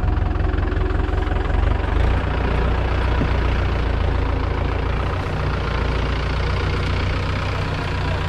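Tractor engine running steadily while it pulls a rear-mounted rotary tiller whose blades churn the soil and rice stubble.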